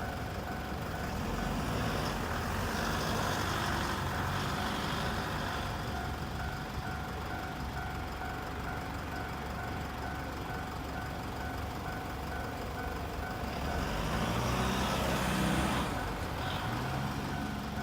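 A Japanese railway level-crossing warning bell rings steadily in its fast repeating electronic "kan-kan" beat. Underneath it a passing rumble swells twice, once a few seconds in and again near the end.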